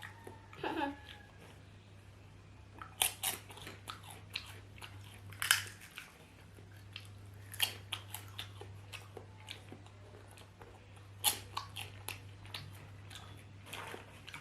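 Close-up chewing and biting of potatoes: irregular crunches and mouth clicks, over a steady low hum.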